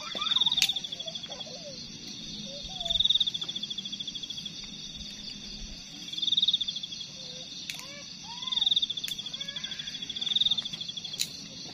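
Night insects calling. One insect sings five pulsed, high-pitched trills, each about a second long, every two to three seconds, over a steady high chorus of other insects. There are faint chirps beneath it, and a few sharp clicks.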